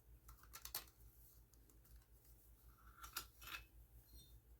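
Near silence: room tone with a few faint, short clicks, twice more about three seconds in, and a brief faint high tone near the end.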